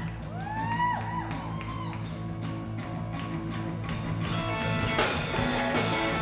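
Live rock band starting a song: electric guitar notes that slide up and back down over sustained low chords and a quick steady tick, then drums, bass and guitars come in together about four seconds in.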